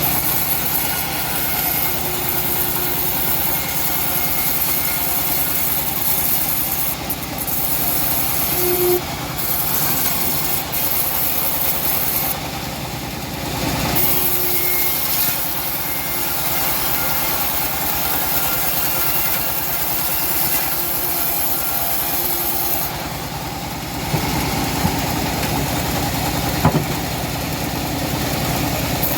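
Engine-powered homemade bandsaw mill running steadily, its motor holding an even, unchanging note.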